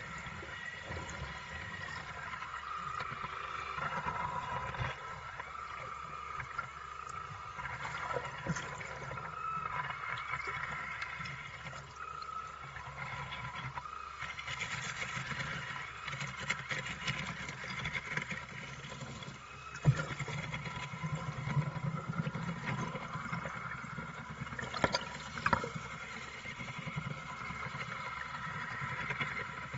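Battery-powered rotating hull-cleaning brush churning and splashing water as it scrubs a heavily fouled boat hull, with a few sharp knocks, the loudest about twenty seconds in.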